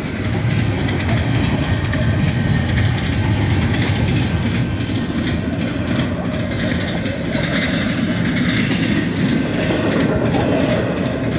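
Double-stack container train's well cars rolling steadily past, a continuous rumble and rattle of steel wheels on the rails.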